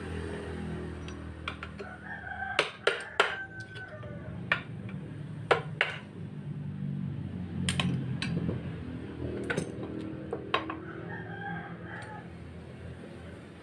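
Scattered sharp metal knocks, about ten spread irregularly, as a screwdriver is struck and worked into the seam of a Suzuki Multicab's aluminium transmission case to split the case halves. A rooster crows twice in the background.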